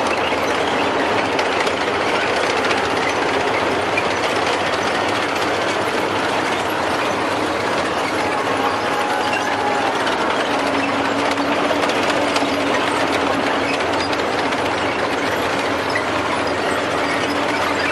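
Several Chonma-ho tanks driving past, their steel tracks clattering steadily on the road over the running of their engines.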